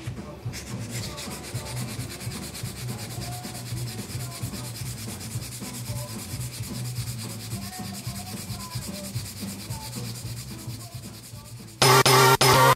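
Hand rubbing rapidly back and forth over the scuffed, curb-rashed lip of an alloy wheel, a steady scratchy rubbing as the damage is sanded and polished down, with soft music underneath. Loud electronic music cuts in suddenly near the end.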